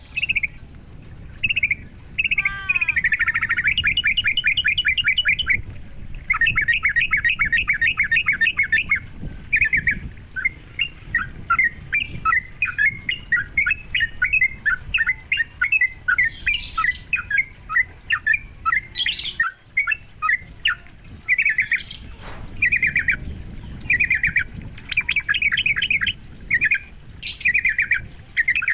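Yellow-vented bulbul (trucukan) song: phrase after phrase of fast bubbling, chattering notes, with short breaks between the phrases.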